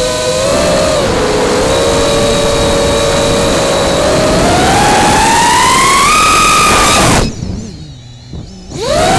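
Martian II FPV quadcopter's brushless motors and propellers whining, picked up by the onboard camera's microphone. The pitch climbs steadily as the throttle opens. About seven seconds in the sound drops almost to nothing for about a second and a half as the throttle is chopped, with the quad pointing straight down, then the whine comes back near the end.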